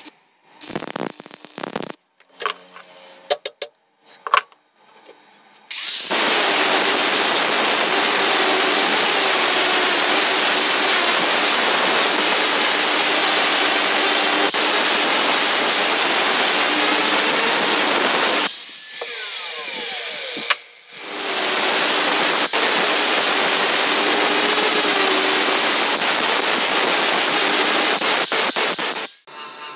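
Stick-welding arc crackling in short bursts for the first few seconds. Then an electric angle grinder with an abrasive disc grinds the weld on a steel crowbar shaft with a loud, steady noise. About two-thirds of the way through it winds down with a falling whine, then speeds up and grinds again until it stops near the end.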